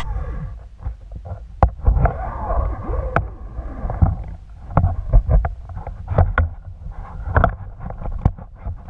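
Muffled underwater noise picked up by a camera housing mounted on a speargun. A steady low rumble of water moving past is broken by many sharp clicks and knocks, with some wavering, bubbly sounds about two to three seconds in.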